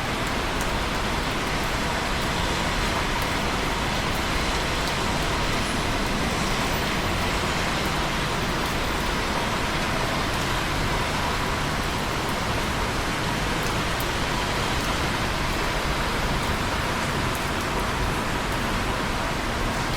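Steady rain, an even hiss of falling water with faint scattered drop ticks.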